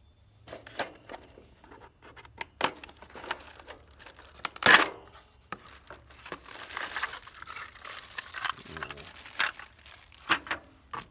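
A cardboard packing insert being torn open and a plastic bag of parts pulled out, with paper tearing, plastic crinkling and sharp clicks and snaps; the loudest snap comes about four and a half seconds in.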